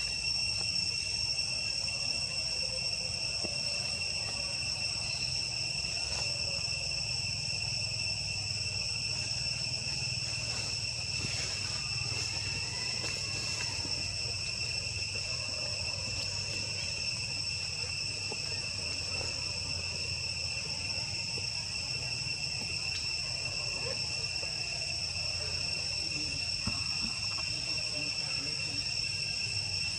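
Insects trilling: a steady, high-pitched drone that holds unbroken, over a low background rumble.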